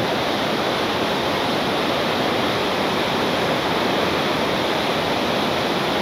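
Rushing river water, a steady even noise.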